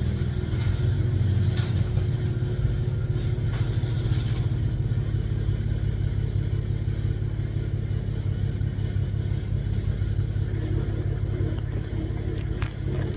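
Cadillac CTS Vsport's twin-turbo 3.6-litre V6 idling steadily, with a few faint clicks here and there.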